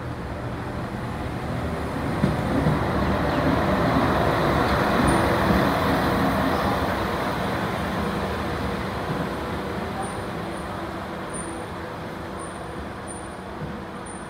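NSW track inspection vehicle MTPV1 running past on the rails. Its noise builds to a peak about five seconds in, then fades slowly as it moves away.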